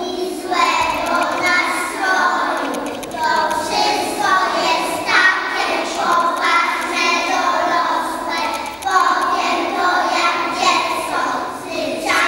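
A group of young children singing together in chorus.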